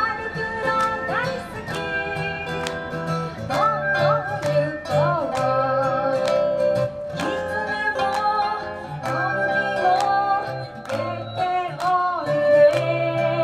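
Live acoustic band music: acoustic guitars strumming under a woman's singing, with erhu and small flutes joining the melody.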